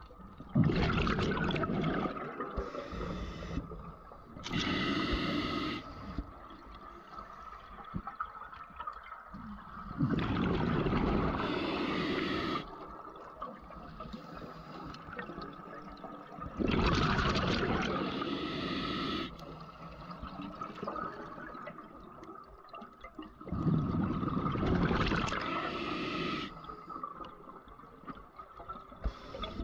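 A scuba diver breathing through a regulator underwater: bursts of exhaled bubbles and hissing inhales in slow cycles, a loud surge about every six or seven seconds.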